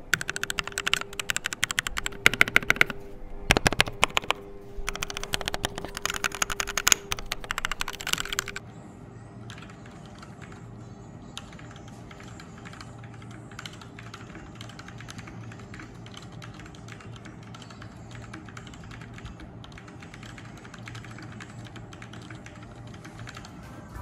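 Keychron K6 aluminium-frame mechanical keyboard with Gateron G Pro red linear switches being typed on. For about the first eight seconds there is a fast, dense clatter of keystrokes. After that the typing goes on quieter and lighter.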